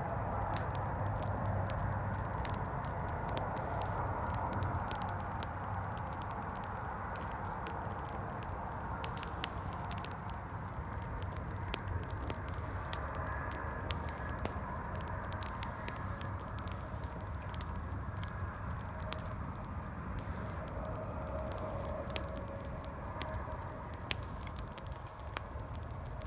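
Campfire crackling, with frequent sharp pops and snaps, over a steady rumble of distant highway traffic.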